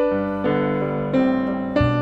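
Background piano music: notes and chords struck one after another at an unhurried pace, each ringing and fading before the next.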